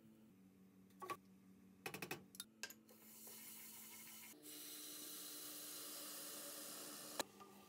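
A wooden spoon knocks a few times against a pot of toasted orzo as it is stirred. Then comes a steady hiss as water is poured from a kettle into the hot pot. The hiss grows stronger about four seconds in and stops abruptly near the end.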